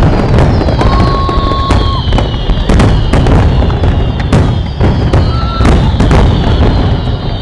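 Fireworks display going off: a rapid, continuous series of bangs over a loud rumbling din, with long falling whistles from the shells.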